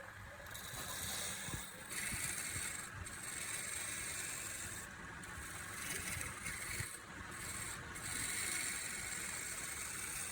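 Wood lathe running with a turning tool cutting the spinning wood: a hissing, scraping cut over a low motor rumble, broken by short pauses every couple of seconds as the tool is lifted and reset.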